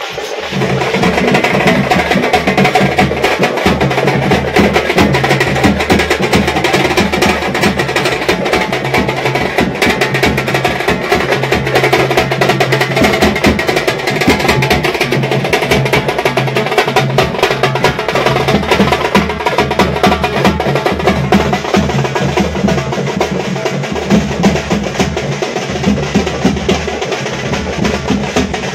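Loud, fast drumming with sharp clicking strokes, a dense steady rhythm of percussion music, stepping up in level about half a second in.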